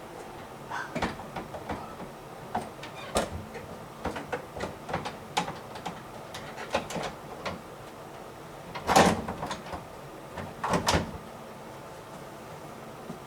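Irregular clicks and knocks of hard washing-machine parts being handled and fitted, with two louder clattering bursts about nine and eleven seconds in.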